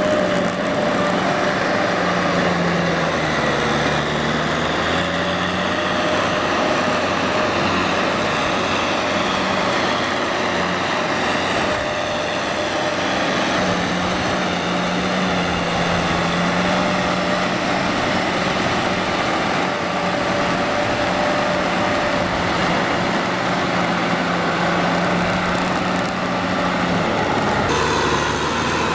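Kubota M6040SU tractor's four-cylinder diesel engine running steadily under load while churning through deep mud, its pitch sagging slightly and recovering a few times.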